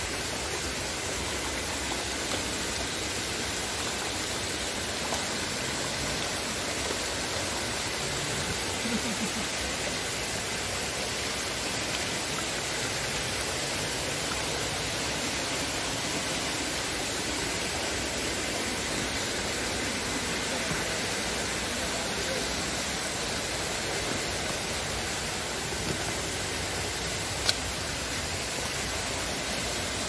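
Steady rushing of a rocky rainforest stream, an even hiss of water with no letup. One sharp click comes near the end.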